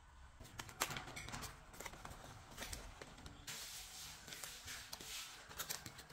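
Parchment baking paper crinkling and rustling as it is peeled off the sides of a baked cheesecake, with scattered light clicks of paper on the plastic board; the rustling grows fuller about three and a half seconds in.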